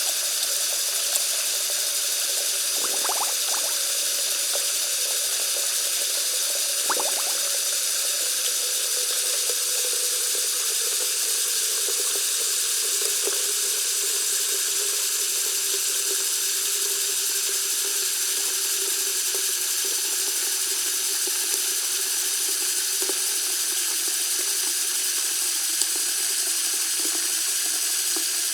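Bathroom sink faucet running in a steady stream of water into the basin, with a few small splashes about three and seven seconds in.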